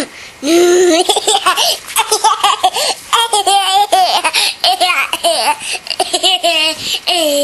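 A toddler girl laughing in repeated high-pitched fits of giggling, in short choppy bursts.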